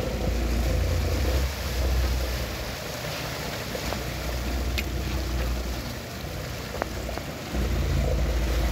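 Water rushing and splashing alongside a slowly moving sportfishing boat, churned up by a blue marlin held at the hull, over a low rumble that swells at the start and again near the end.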